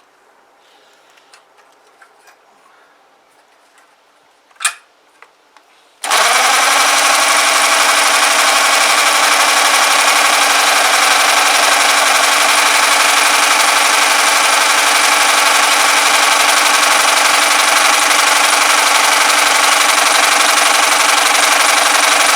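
A few light clicks and a sharp knock, then, about six seconds in, the small petrol engine of a Clarke pressure washer is suddenly spun over continuously at a steady speed by a power tool through a makeshift adapter. It is loud and even, and the engine is not firing or catching.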